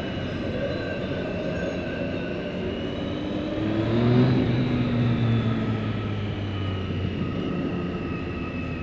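Triumph Street Triple 675R's three-cylinder 675 engine running at cruising speed inside a tunnel, heard from the rider's seat. The engine climbs in pitch about three seconds in, then holds and slowly eases off.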